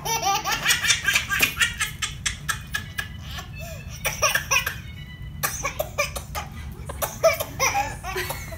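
A baby laughing in quick, repeated bursts, with a brief pause about halfway through.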